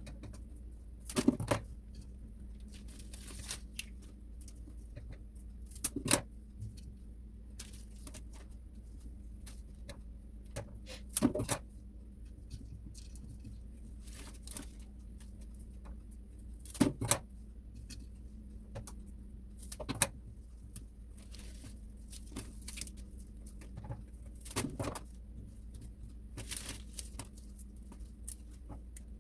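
Sharp clicks and knocks every few seconds, as objects are handled, over a steady low hum.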